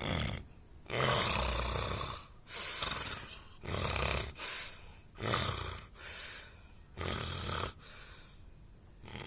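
A person snoring in a run of rough, rasping breaths, one roughly every second; the longest, about a second in, lasts about a second.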